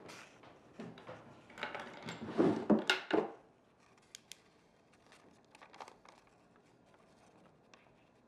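Paper rustling and crackling as a letter is handled and unfolded, loudest about two to three seconds in, then two light clicks about a second later and a few fainter rustles.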